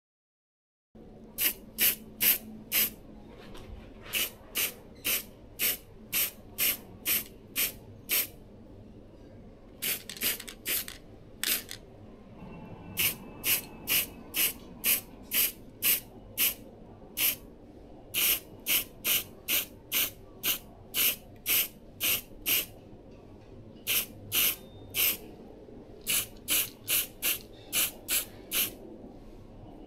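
Aerosol spray-paint can sprayed in many short hissing bursts, about two a second, in runs broken by brief pauses, laying on a second coat of paint.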